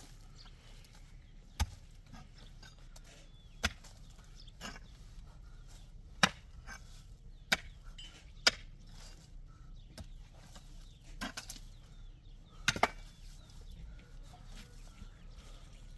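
A series of sharp knocks or impacts, about seven, irregularly spaced a second or two apart, over faint background noise.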